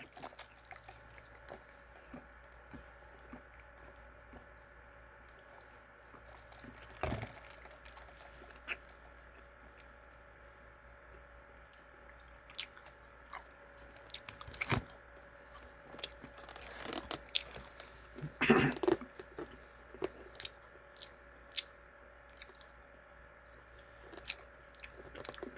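A person chewing and biting into sauce-coated fried chicken nuggets, with scattered soft crunches and clicks and a louder burst of noise about 18 seconds in, over a faint steady hum.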